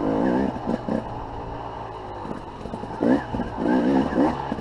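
Dirt bike engine running at low speed with short throttle blips. It revs in quick surges right at the start and again for about a second near the end.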